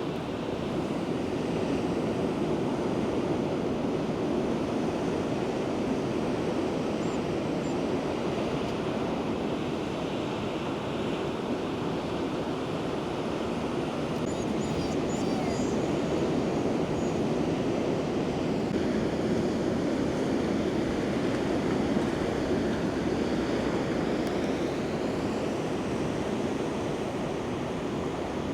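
Ocean surf: a steady, even rush of breaking waves and moving water.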